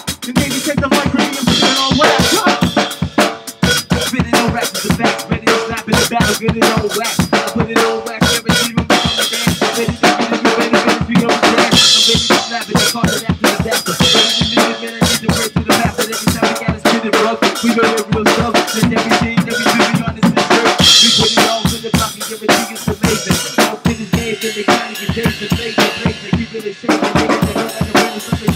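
Drum kit played in a fast, busy beat of bass drum, snare and rim hits, with several crash cymbal hits along the way.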